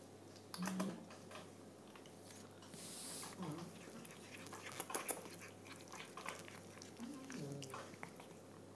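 A cat making a few short, low-pitched vocal sounds. One comes about a second in, one falls in pitch midway, and a longer wavering one near the end drops lower, with faint clicks between them.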